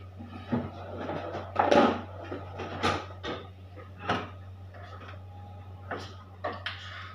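Irregular knocks and clatter of kitchen utensils being handled, about seven sharp hits spread over several seconds, over a steady low hum.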